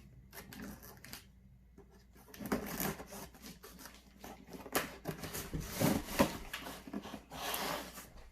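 Cardboard shipping box being cut open with a knife and handled: irregular scraping, rustling and sharp knocks, with loose parts shifting inside the box.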